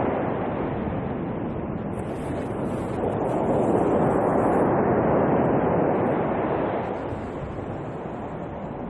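Sea waves breaking on a pebble beach. The surf swells about three seconds in as a wave breaks, then eases off near the end.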